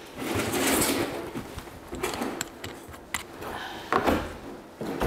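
Large hard-plastic Otter ice-fishing sled being stood on end and tipped over onto a concrete floor. A scraping shuffle of plastic comes first, then scattered clicks and knocks, with a louder clunk about four seconds in and another near the end.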